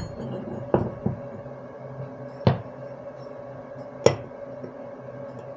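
Pieces of steel flat bar being handled and set down against each other on a workbench: four short sharp metal clanks over several seconds, the loudest about four seconds in, over a steady hum.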